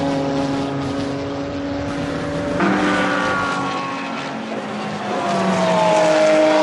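GT3 race car engines running at speed on track. The sound changes abruptly to a different engine note about two and a half seconds in, and the engine pitch falls slowly near the end.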